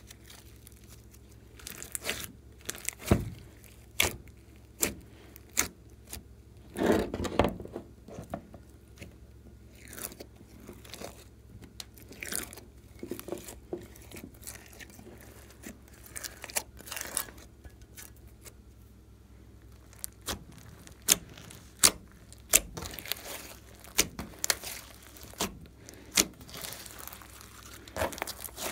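Glossy slime mixed with clay, glitter and foam beads being kneaded, stretched and squeezed by hand. It makes irregular sharp pops and crackles, with a longer wet squelch about seven seconds in.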